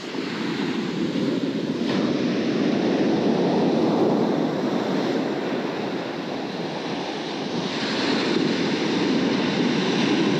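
Ocean surf breaking and washing up a sandy beach, a steady rush that swells louder about two seconds in and again near eight seconds.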